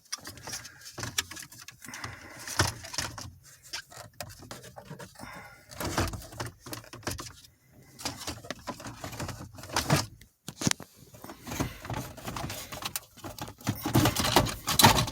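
Irregular metallic clicks, clinks and scrapes of a hand tool working out the 10 mm bolts that hold a car's factory stereo in the dash, with the deck and its brackets being handled.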